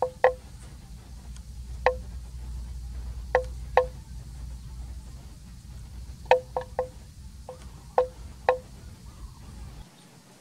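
Neck bell on a grazing water buffalo clanking irregularly: about ten single ringing strokes, some in quick pairs and threes, over a low steady rumble that cuts off near the end.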